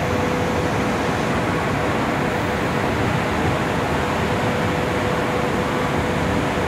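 Steady industrial noise of a steel plant's machinery, an even rushing hum with a faint steady whine.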